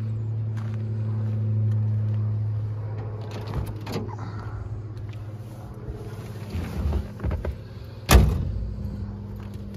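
A motor vehicle's engine running in the background, a steady low hum that swells about two seconds in and then fades. Scattered handling knocks, and a loud sharp thump about eight seconds in.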